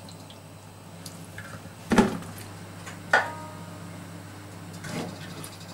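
Wet handfuls of salted daikon strips squeezed and dropped onto a board, with a dull thump about two seconds in and a sharp metallic clink with a brief ring from the aluminium tray about a second later. A low steady hum runs underneath.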